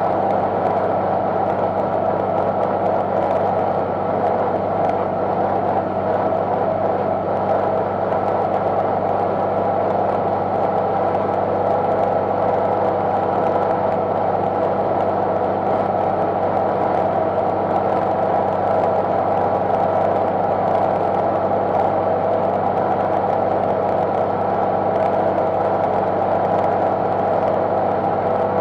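Tractor engine running at a steady, constant speed while driving a PZ drum mower. The note stays even throughout.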